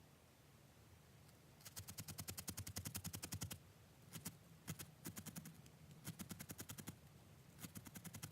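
Felting needle jabbing rapidly into wool roving, a run of quick, faint clicks at about ten a second, in several bursts with short pauses between.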